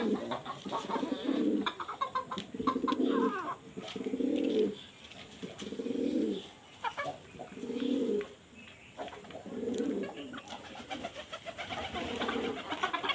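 Bird giving low cooing calls, repeated about every one to two seconds, around ten in all, with faint clicks between them.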